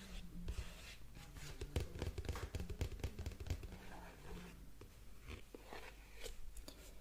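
ASMR tapping and handling of objects close to the microphone: a quick run of soft taps, light scrapes and crinkles, busiest in the middle.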